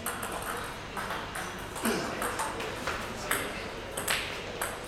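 Table tennis rally: the ball clicking off the bats and bouncing on the table, about ten sharp clicks in quick, uneven succession.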